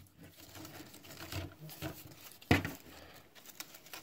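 Faint rustling and scraping as a snowshoe binding's webbing strap is handled and worked through the snowshoe's lacing, with one louder, sudden sound about two and a half seconds in.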